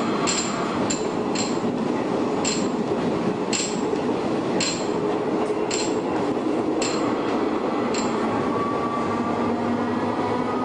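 Shin-Keisei 100-series electric train with nose-suspended traction motors running, a steady rumble overlaid by sharp metallic ticks, about two a second at first, then about one a second, stopping about eight seconds in. Near the end a low motor hum starts to rise in pitch.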